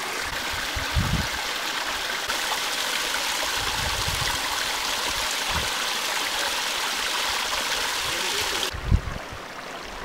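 Small waterfall and hill stream splashing and trickling over rocks: a steady rush of water that drops away suddenly near the end.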